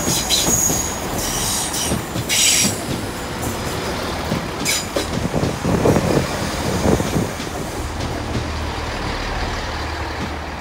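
GWR Class 165 and 166 Turbo diesel multiple units pulling into the platform: high wheel squeal in bursts over the first few seconds, then the wheels clattering over the rails, settling into a steady low diesel hum near the end as the train draws to a stop.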